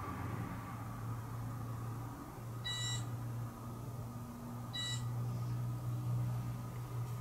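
Two short electronic beeps about two seconds apart, each a bright multi-tone bleep, over a steady low hum.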